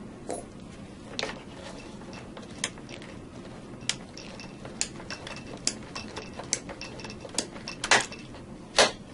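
Manual charging handle of an Eaton Series NRX power circuit breaker being pumped to charge the closing spring: a series of metallic ratchet clicks, with two louder clacks near the end, after which the spring shows charged.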